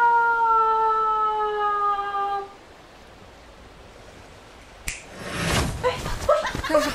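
A woman's voice holds a long drawn-out cry of 'No-o!' (不要啊), its pitch sliding slowly down, and it ends about two and a half seconds in. After a stretch of faint hiss, a sharp click near the end is followed by noisy rustling and short wavering vocal sounds.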